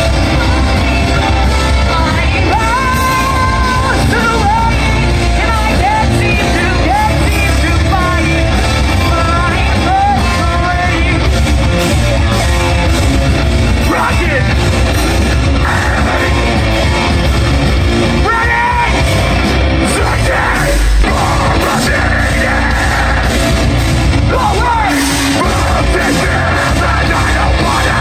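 Metalcore band playing live: distorted electric guitar, bass and drums, with one vocalist singing melodic lines and another screaming over them.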